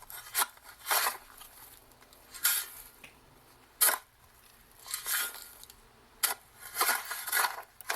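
A shovel digging in dirt: short, jerky scrape-and-hit sounds as the blade bites into the soil, and longer sounds as the dirt is thrown, coming in uneven bursts every second or so.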